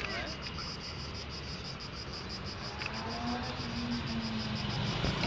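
Cicadas singing in a steady, evenly pulsing chorus over a low rumble of traffic. A low engine hum rises about three seconds in.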